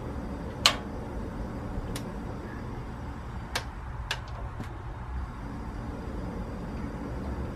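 Control knob of a Camp Chef butane single-burner stove being turned to adjust the lit burner's flame, clicking as it goes: one sharp click about a second in, then four fainter clicks, over a steady low background noise.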